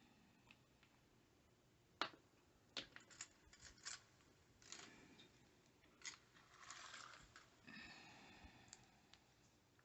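Faint handling noises: a sharp click about two seconds in, a quick run of small clicks soon after, then softer scraping and rustling as small objects are picked up and set down.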